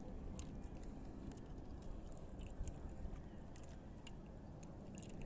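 Faint handling noise of a fishing handline being pulled in by hand after a bite: soft scattered clicks and crackles over a low rumble.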